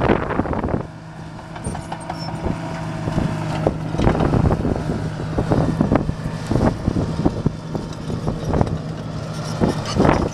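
Caterpillar D5M XL crawler dozer's diesel engine running steadily as the machine drives and turns, with irregular clanks from its steel tracks. Wind buffets the microphone for about the first second.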